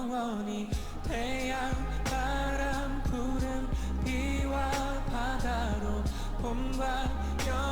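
K-pop song playing: a male voice singing with vibrato over a bass line and a steady beat.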